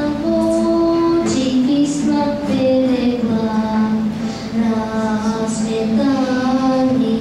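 A young girl singing a melody in long held notes, accompanied by her classical nylon-string guitar.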